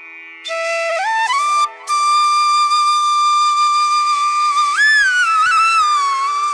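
Background music: a solo melody line with sliding notes and a long held note, over a steady drone. It comes in about half a second in and breaks off briefly near the two-second mark.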